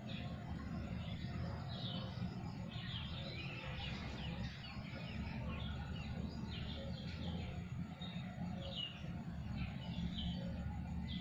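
Small birds chirping in quick, short calls scattered throughout, over a steady low background rumble.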